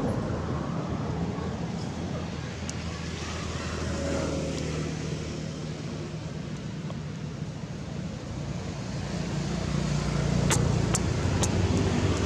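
Steady low hum of a running motor engine, growing a little louder in the second half, with three sharp clicks near the end.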